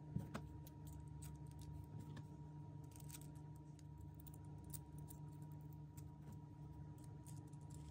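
Faint, irregular clicks and light clinks of small thin metal model-kit parts being handled and fitted together by hand, over a steady low hum.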